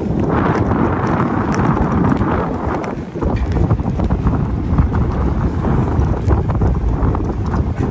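Wind buffeting the microphone: a loud, dense low rumble with faint scattered clicks through it.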